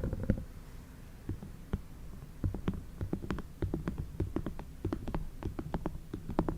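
ASMR tapping: many soft, quick taps and clicks close to the microphone at an irregular pace, over a low rumble.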